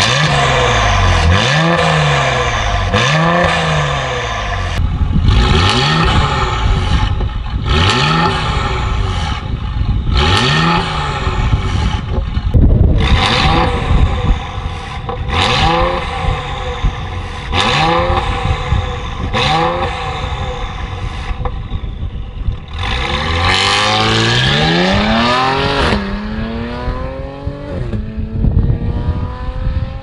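Mercedes-AMG GLE Coupe with a decatted, valve-controlled aftermarket exhaust being revved hard again and again, each rev rising and falling quickly. Near the end it accelerates away with a long rising pull, drops at a gear change, then rises again as it fades out.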